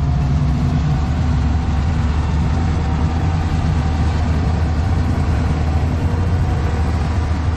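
Four diesel freight locomotives pulling hard under load: a loud, steady, low engine drone.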